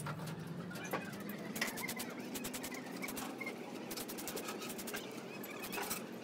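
Stiff hand brush scrubbing a steel truck bolt wet with cleaning liquid, making runs of quick scratchy strokes.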